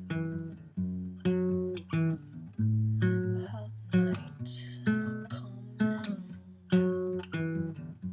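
Nylon-string classical guitar fingerpicked, slow plucked chords with low bass notes, about one a second, each ringing and dying away. A brief soft hiss about halfway through.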